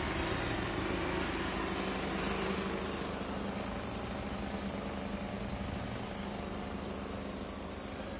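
Small engine running steadily with a low hum, driving the pump of a hose-fed disinfectant sprayer.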